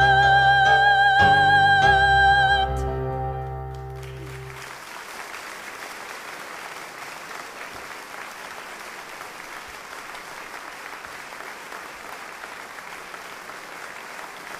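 A soprano holds a final high note with vibrato over instrumental accompaniment, and the music ends about two and a half seconds in. An audience then applauds steadily.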